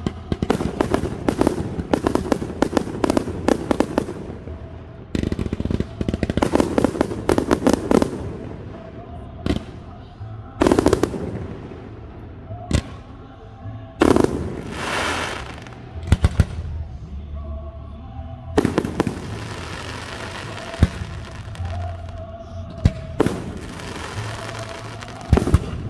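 Aerial fireworks bursting overhead: long runs of dense crackling, several sharp bangs, and a hissing whoosh about halfway through.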